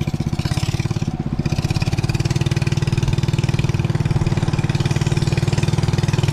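Small boat motor running steadily with a fast, even pulsing hum, picking up slightly about two seconds in. The sound cuts off suddenly at the end.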